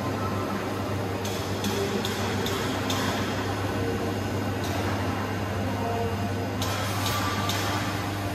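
Steady low hum of a QC11K-16X2500 hydraulic guillotine shear standing powered, its hydraulic pump motor running. Over it come short high ticks in small runs, as numbers are keyed into the machine's touchscreen controller.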